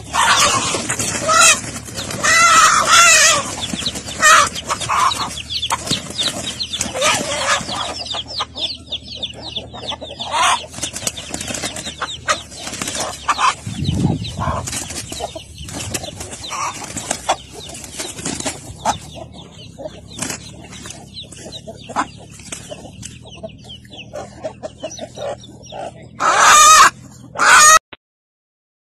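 A hen squawking loudly in distress while a bird of prey grapples with it, with wing flapping. The cries are densest at first, then come in scattered bursts, and a last loud burst of squawks comes near the end.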